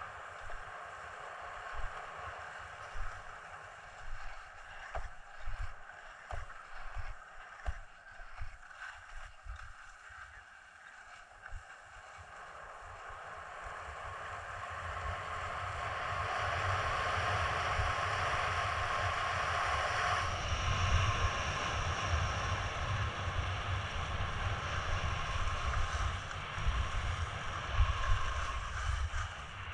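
Skis sliding and scraping over packed snow, with wind buffeting the camera microphone in low gusty thumps. About halfway through, the rush of the skis and wind grows louder and steadier as the skier picks up speed.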